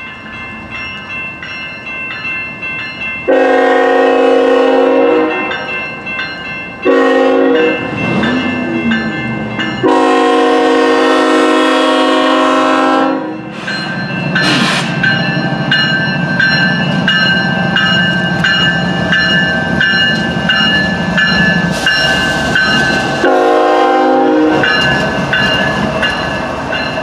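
Locomotive horn sounding several blasts, a two-second one a few seconds in, a short one, a three-second one about ten seconds in and another short one near the end, over the continuous rumble and clatter of a running train.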